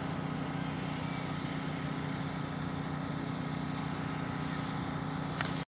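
A steady low mechanical hum, like an engine running, over a faint even hiss. It cuts off abruptly near the end.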